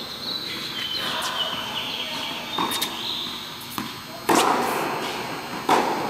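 Tennis balls struck by racquets in a groundstroke rally on an indoor court: sharp hits with a short echo, the loudest about four seconds in and another just before the end, with fainter hits from the far end of the court between them.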